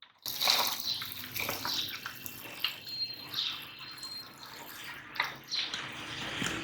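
Orbeez water beads being crushed in a meat grinder: a wet, squelching, crackling noise that comes in uneven surges, with a sharp, loud burst just before it cuts off.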